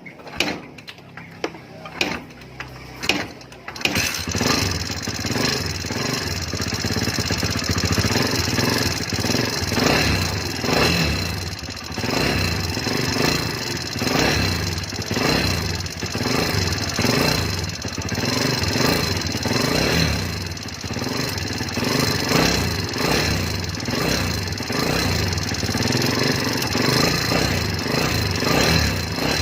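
A few sharp clacks, then a Kawasaki Barako 175's single-cylinder engine starts about four seconds in and idles with a loud ticking from the rocker arms (lagitik), the sign of valve clearance that needs adjusting.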